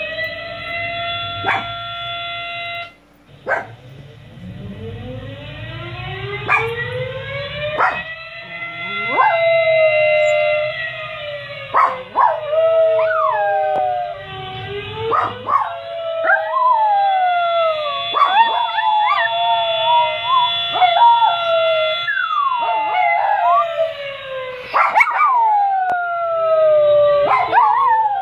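A recorded fire-station siren played through laptop speakers, winding up from a low pitch to a steady wail, then slowly falling and rising again, while miniature pinschers howl along in sliding, wavering howls with a few short yips. The dogs' howls come in partway through and grow thicker toward the end.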